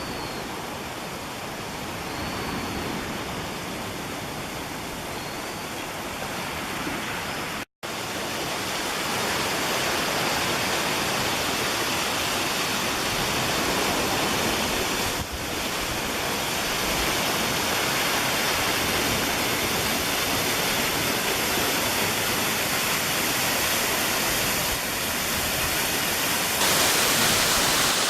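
A waterfall's steady rush of falling water, dropping out for an instant about eight seconds in and growing brighter and louder near the end.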